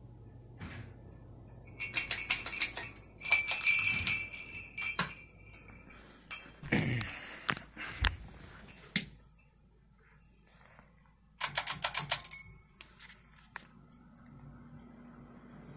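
Ceiling fans running with a faint steady hum, broken by several bursts of rapid clicking and rattling; the loudest burst comes about a second and a half to five seconds in and another about eleven seconds in.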